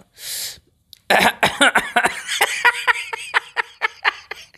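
A man laughing hard: a quick breath in, then a long run of rapid laughs that grow fainter toward the end.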